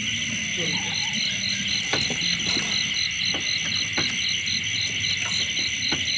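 Crickets and other insects chirring in a steady, dense chorus, with one insect pulsing about five times a second, over low frog calls.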